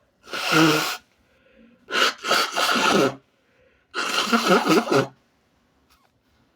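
A person sneezing three times, about two seconds apart, each sneeze a loud, wet, voiced burst; the second begins with a short catch.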